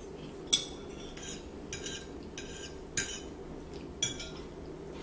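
Metal forks clinking and scraping against dinner plates during a meal: a run of short, sharp clinks about every half second, the loudest about half a second, three seconds and four seconds in.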